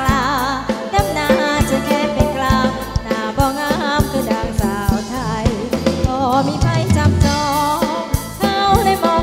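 Live Thai ramwong dance music: a singer with heavy vibrato over a band with a steady drum-kit beat, taken straight from the mixing desk.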